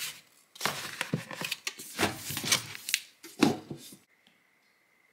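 Cookbooks being handled and pushed upright into a narrow gap on the kitchen work surface: covers scraping and rubbing against each other and the neighbouring bin and board, with a sharp knock about three and a half seconds in. The sound stops abruptly about four seconds in, leaving only a faint steady high hum.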